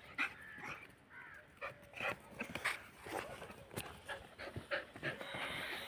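Two dogs panting and sniffing close up, in short irregular breaths.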